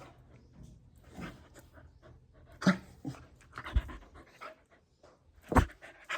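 Golden retriever puppy panting in irregular bursts while play-biting, with a few short sharp sounds, the loudest of them near the end.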